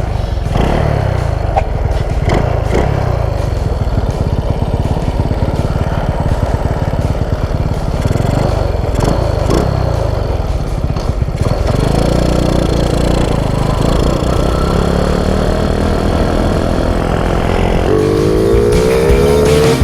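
Honda Wave 125 motorcycle's single-cylinder four-stroke engine running. About two seconds before the end its note starts rising steadily as it revs up.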